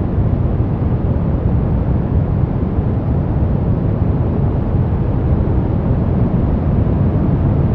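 Steady brown noise: an even, deep rushing hiss, strongest in the low end, with no changes or events.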